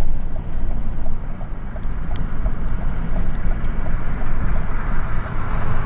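Blizzard wind buffeting the microphone in a steady low rumble, with road vehicle noise underneath.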